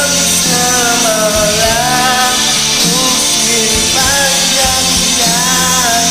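A man singing a Malay-language song with a wavering melody over a karaoke backing track.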